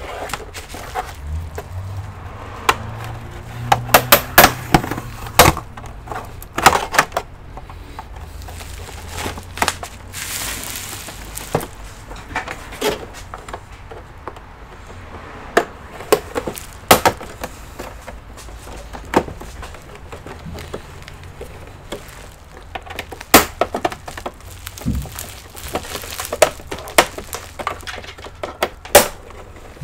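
Plastic back cover of an all-in-one PC being pried open: irregular sharp clicks and snaps as the case clips are worked loose.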